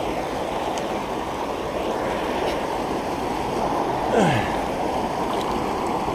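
Steady rushing water from white water spilling beside a stone wall. About four seconds in there is a short sound that falls in pitch.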